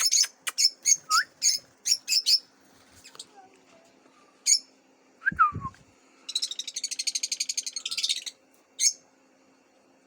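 Lovebirds calling: a quick run of sharp, shrill chirps, then scattered single calls and a fast chattering trill lasting about two seconds. A low knock sounds about halfway through.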